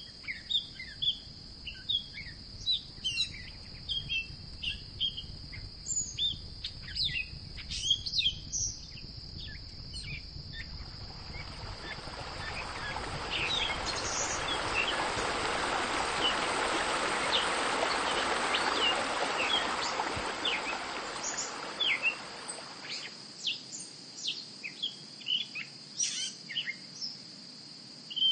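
Small birds chirping repeatedly over a steady high hiss. A broad rushing noise builds up about ten seconds in, holds for several seconds, and fades away by about twenty-three seconds.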